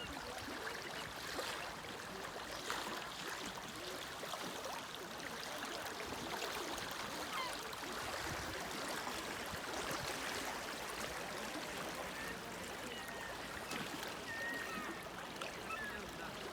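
River water rushing steadily, with a few faint short high calls about three quarters of the way through.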